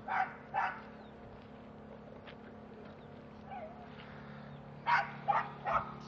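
A dog barking in short, sharp barks: two near the start, then three in quick succession about five seconds in.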